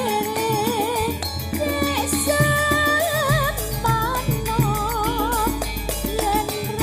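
Campursari langgam music: a lead melody of held, wavering notes over a steady bass line and percussion.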